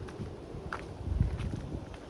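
Sea water washing against a rocky shore, with wind rumbling on the microphone and a few short clicks and splashes, the loudest just past a second in.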